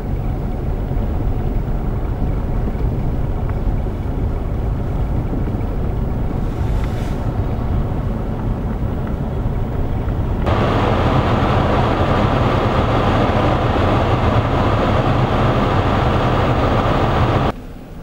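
Strong blizzard wind buffeting the microphone, a steady low rumble with hiss. About ten seconds in it jumps louder and hissier, then cuts off sharply near the end.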